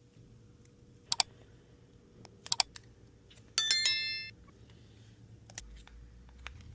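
A few light clicks of small tools handled on a repair bench, then a short bright metallic ring of several high pitches that dies away in under a second.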